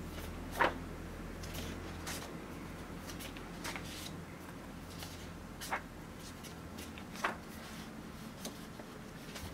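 Paper pages of a large hardcover book being turned, each turn a short swish, about five times every second or two.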